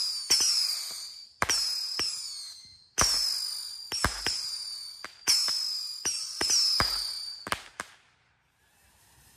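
Firework cake firing whistling deadhead shots, about one a second: each a sharp crack followed by a shrill whistle that falls slightly in pitch. Extra pops come between, and the shots end about eight seconds in.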